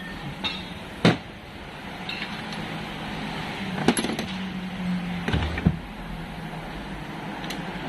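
Metal transmission parts being handled on a workbench, with several sharp clinks and knocks over a steady low hum.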